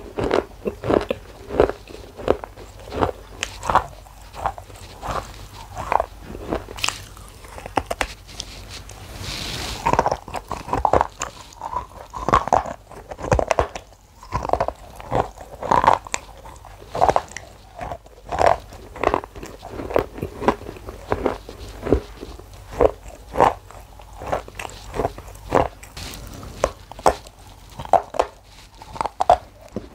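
Close-up biting and chewing of thin chocolate shards: a long series of short crisp crunches, about one or two a second. A brief hiss comes about nine seconds in.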